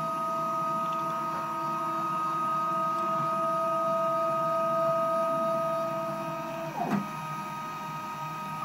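Solsylva DIY CNC router's stepper motors driving the axes, a steady electronic whine in two notes. The pitch shifts about seven seconds in as the move changes, then sweeps down and stops at the very end.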